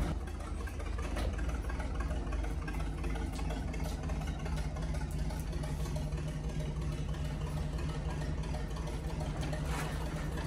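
Deck crane machinery running with a steady low drone, its hum growing stronger about halfway through, with a few faint knocks.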